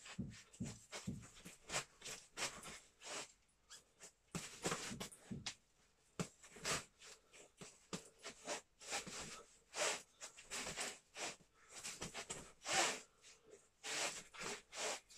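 A boxer's sharp hissing exhalations, one short burst with each punch, coming in quick runs with brief pauses between combinations. A few low thumps, likely his feet on the floor, come near the start.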